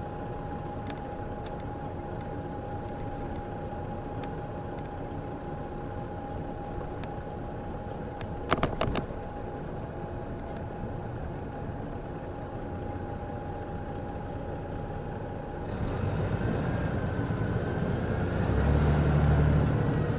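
The Detroit Diesel Series 60 diesel of an MCI D4000 coach idles steadily, with a steady whine over the drone. About eight and a half seconds in comes a brief, loud click-like burst. Near the end the engine sound grows louder and rougher.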